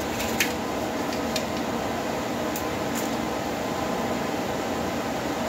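Steady fan-like hum of a running machine in a workshop, with a few light clicks and rustles of hands handling a paper towel and the chainsaw.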